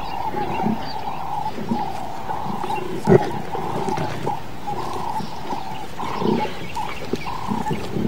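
Lions growling and snarling while feeding at a buffalo carcass, with one sudden, louder snarl about three seconds in.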